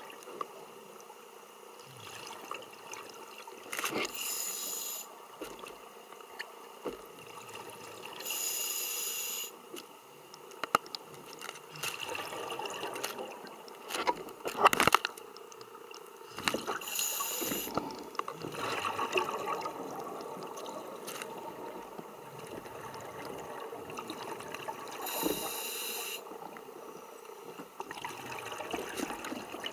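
Scuba regulator breathing heard underwater: four inhalations, each a brief hissing rush, with gurgling, crackling exhalation bubbles in between.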